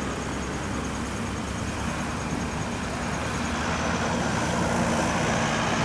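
Highway traffic going by: a steady rush of tyres and engines with a low engine hum that grows a little louder over the second half.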